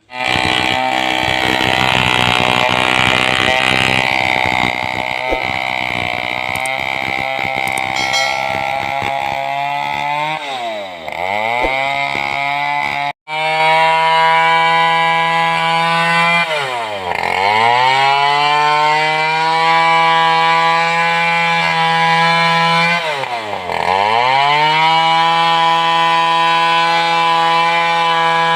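Large Stihl two-stroke chainsaw running at full throttle and cutting through wood for about the first ten seconds. It then runs with a clearer, steadier note, and the revs drop sharply and climb back up three times as the throttle is let off and opened again.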